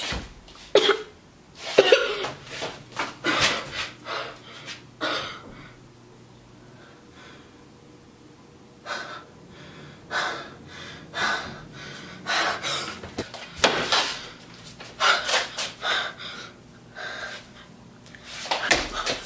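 A boy making short, breathy vocal noises in irregular bursts with quiet gaps between, loudest about a second or two in and again near the end.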